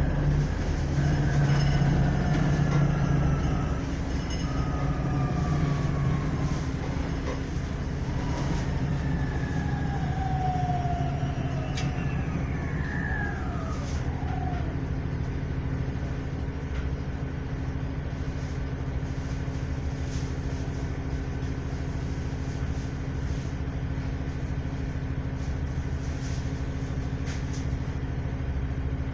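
City transit bus heard from inside the passenger cabin, slowing with several falling whines from the drivetrain over the first fifteen seconds or so. It then sits idling with a steady hum.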